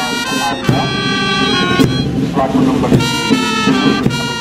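Parade band playing a march: wind instruments carry a melody in changing held notes, with a drum beat now and then.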